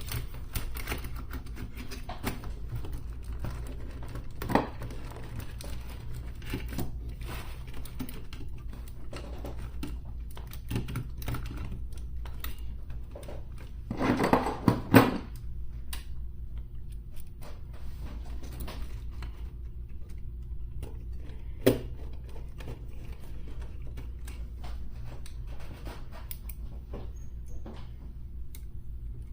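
Scattered small clicks and taps of radio parts being handled and fitted back together during reassembly, with a louder cluster of rattling clicks about halfway through and a single sharp knock a few seconds later. A low steady hum runs underneath.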